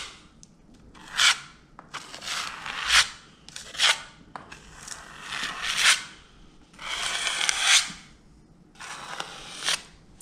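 Filling knife scraping wet filler across the patched crack to cover the hole, in about six strokes of roughly a second each with short pauses between them.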